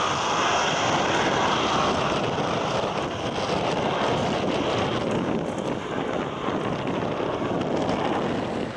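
Twin jet engines of an Airbus A330 airliner climbing away after takeoff: a steady broad rumble that slowly grows quieter and duller as the aircraft moves away.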